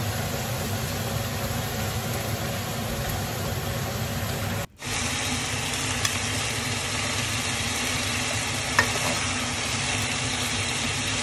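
Chicken pieces sizzling as they brown in a nonstick pot, turned with a plastic spatula that scrapes and taps against the pot. The sizzle is steady and drops out for a moment near the middle.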